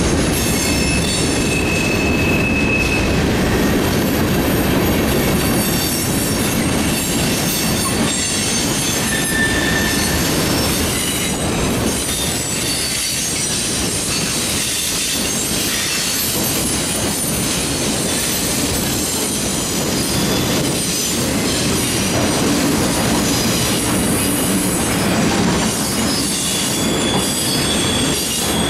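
Freight cars of a manifest freight train rolling past with a steady rumble of steel wheels on rail, broken a few times by brief high-pitched wheel squeals.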